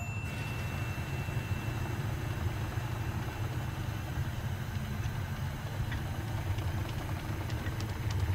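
Low, steady rumble of idling vehicle engines that cuts in abruptly, with a thin high tone that fades out about two seconds in.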